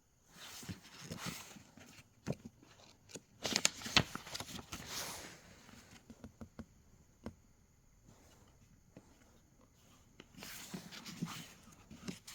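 Handling noise in three bursts of rustling with sharp clicks and knocks, as things are picked up and moved about.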